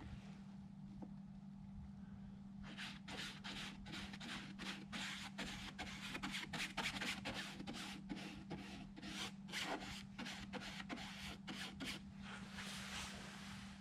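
Bristle paintbrush brushing thinned adhesive onto a fabric doily on a fabric-covered aircraft wing: quick, repeated scratchy strokes, about three a second, starting about two and a half seconds in.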